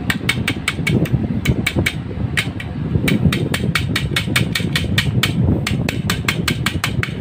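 Rapid light metal-on-metal taps, about five a second with a couple of brief pauses, as pliers tap a retaining pin back into an airgun's valve housing.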